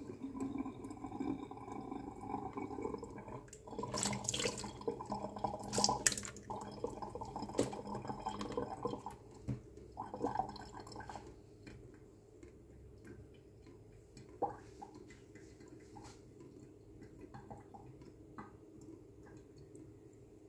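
Water splashing and dripping in a stainless steel bowl while kailan is rinsed, with two louder knocks about four and six seconds in. After about eleven seconds only faint drips and small ticks remain.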